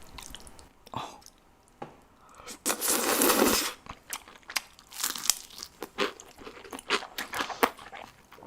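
Close-miked mukbang eating of jjajang noodles with octopus: about three seconds in, a second-long slurp, followed by chewing with many quick wet clicks and smacks.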